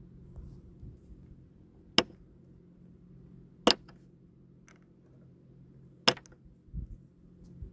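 Heated-seat rocker switch on a Suzuki AN650 Burgman scooter being pressed, three sharp clicks roughly two seconds apart over a low steady hum. A couple of dull bumps follow near the end.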